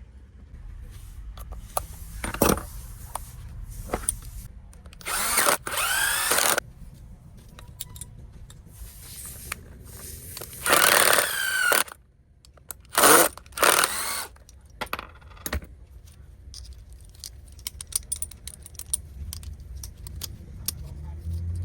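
Pumpkin INF-26RHBL rotary hammer drill run in short bursts of a second or so, four times, its motor whine shifting in pitch as it spins up and down, with clicks and knocks of handling in between.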